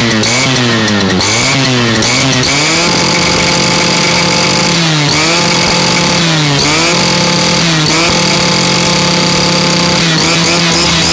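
Stihl FS230 brush cutter's 40.2 cc two-stroke engine running at high revs. Its pitch dips and climbs back as the throttle is eased off and opened again: three quick dips in the first three seconds, then held steady with three more brief dips.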